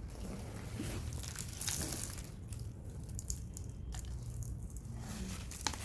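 Packaging rustling and crinkling, with scattered light clicks, as small potted cactus plants are unwrapped by hand.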